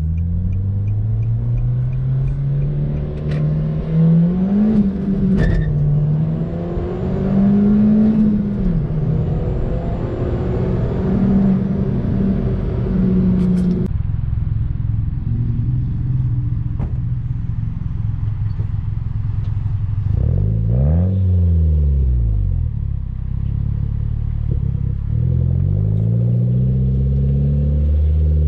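2014 Nissan Juke Nismo RS's turbocharged 1.6-litre four-cylinder breathing through an Injen 3-inch SES exhaust. First it makes a full pull in sport mode heard from inside the cabin, the engine note climbing and falling back a couple of times. From about halfway the exhaust is heard right at the muffler outlet as the car drives, a deeper, steadier note that swells and drops once about two-thirds through and rises again near the end.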